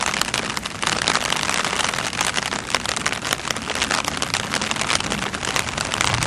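Steady rain falling: a dense, even hiss of crackling drops.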